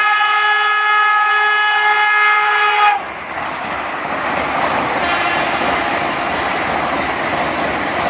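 Train 18 (Vande Bharat Express) semi-high-speed electric train sounding one long steady horn blast, which cuts off abruptly about three seconds in. After that comes the loud, steady noise of the train running past at speed on the rails.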